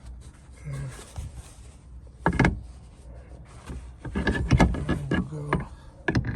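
Handling noise of an armrest being fitted onto its seat mount: plastic washers and hardware knocking, rattling and scraping, loudest a little over two seconds in and in a busy stretch about four to five seconds in.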